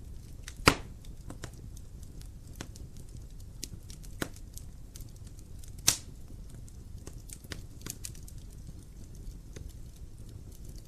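Wood fire crackling in a fireplace: irregular small ticks and snaps over a low steady rumble, with one loud pop about a second in and another about halfway through.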